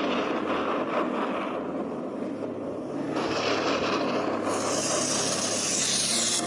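A steady rushing noise with no clear pitch, growing brighter and more hissing after about four seconds.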